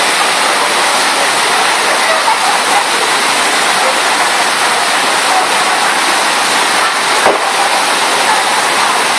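Steady loud rush of water from a FlowRider surf simulator: a thin sheet of water pumped at speed up over its sloped riding surface. A brief sharp knock cuts through about seven seconds in.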